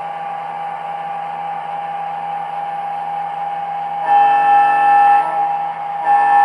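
Sound system of an MTH O-scale SD40-2 model locomotive playing an EMD diesel prime mover idling steadily through its small speaker. About four seconds in, a horn blast of roughly a second sounds over the idle, and a second blast begins about two seconds later, still sounding at the end.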